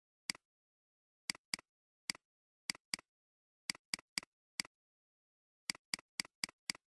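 Computer mouse clicking: about fifteen sharp clicks, singly and in quick runs of two to five.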